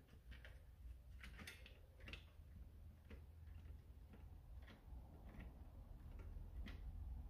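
Faint, irregular small clicks and ticks as a screw is driven back into the plastic shell of an X-Shot Longshot foam blaster by hand.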